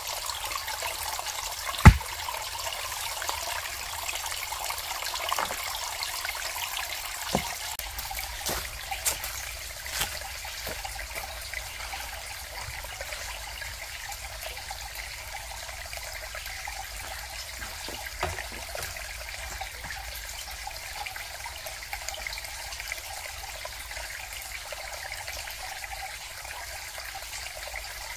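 Steady rain falling, an even hiss with a sharp knock or drip now and then, the loudest about two seconds in.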